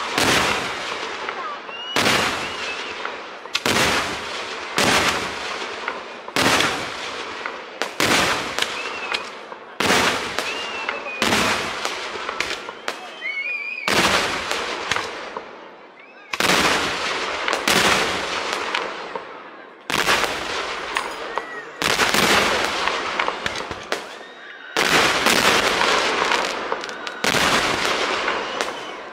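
Fireworks display: a long, irregular string of loud bangs, about one every one to two seconds, each trailing off into crackle and echo, with a few short whistles between them.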